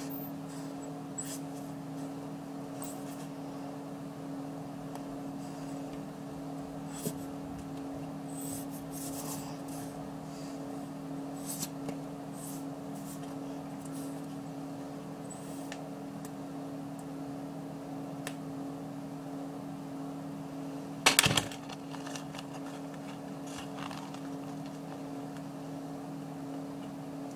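Steady low hum in a quiet room, with scattered faint clicks and taps of hands handling a glue bottle and cardboard, and a short cluster of louder taps about three-quarters of the way through.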